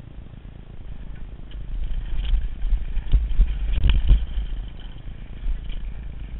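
Mountain bike riding fast down a rough dirt trail: a rumble of wind on the camera microphone and tyres over dirt and rock, which grows louder through the middle, with a few clattering knocks about halfway through, then eases off.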